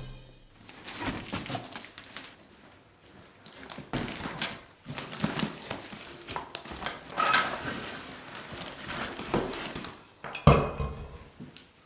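Irregular knocks, taps and rustling of something being handled on a work surface, with the loudest knock about ten and a half seconds in.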